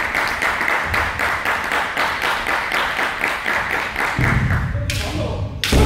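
Audience applause in a large hall, dying away about five seconds in. Near the end a single loud thud.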